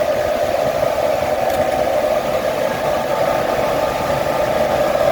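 Cooling fans of a container full of Bitcoin mining rigs running at full speed, a loud, steady rush of air with a droning tone beneath it, blowing the miners' hot exhaust out of the hot side.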